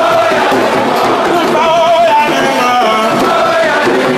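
Loud devotional chant (thiant) sung with long wavering notes, over a crowd's voices.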